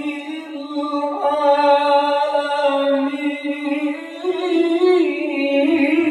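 Male qari reciting the Quran into a microphone in the melodic tilawah style. He holds long, wavering notes, and his voice steps up in pitch about four seconds in.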